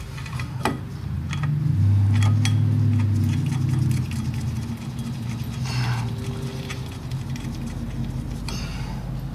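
Light metal clicks and clinks as pressure plate bolts are fitted by hand around a VW 1600's clutch pressure plate and flywheel. A steady low hum runs underneath and grows louder for a couple of seconds near the start.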